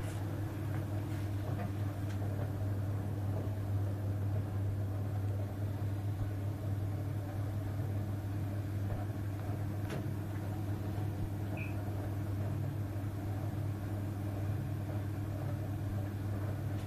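Potterton Netaheat 16-22 gas boiler running with a steady low hum and an irregular crackle of kettling. This is water boiling in the heat exchanger, a sign of overheating, and it persists even after treatment with Sentinel X200 descaler.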